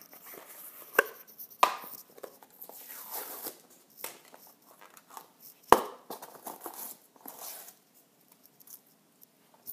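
Dry panko crumbs and lemon zest being stirred together in a bowl: gritty rustling and scraping, with a few sharp knocks of the utensil against the bowl, the loudest a little under six seconds in. It quietens over the last couple of seconds.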